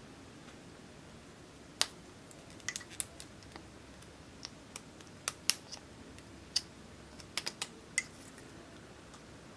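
Slime being worked by hand: scattered sharp clicks and small pops at an irregular pace, starting about two seconds in.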